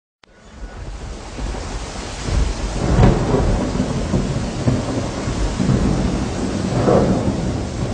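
Steady rain with rumbling thunder, fading in from silence; the thunder swells about three seconds in and again near the end.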